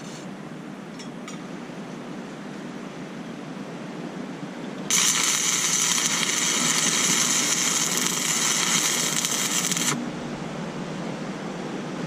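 Stick-welding arc from a buzz-box welder laying a tack weld on steel plate with a 3/32 6013 rod: it strikes about five seconds in, burns steadily for about five seconds and cuts off suddenly.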